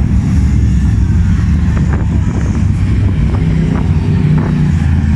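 F1 stock car racing engines running on a dirt oval: a loud, steady low rumble of several engines, their pitch shifting as the cars rev.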